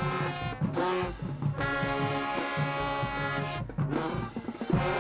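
High school marching band's brass section playing loud held chords, with two short breaks between phrases, about half a second in and at about three and a half seconds.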